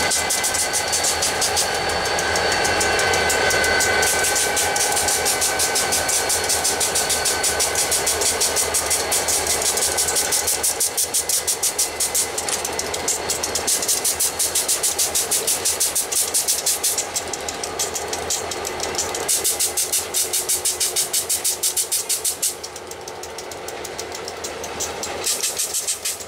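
Diesel-hauled freight train running by, engines working, with a fast regular pulsing clatter. A thin high tone fades out over the first few seconds, and the sound drops off noticeably about 22 seconds in.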